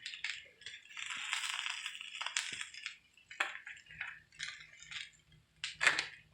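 Kitchen handling sounds while meatballs are moved and portioned: about a second of scraping or rustling, then several short clicks and knocks of utensils against dishes or a container, the loudest near the end.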